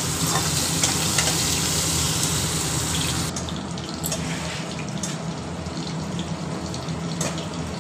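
Sliced onions sizzling in hot oil in a kadai, a steady hiss that turns quieter and duller a few seconds in.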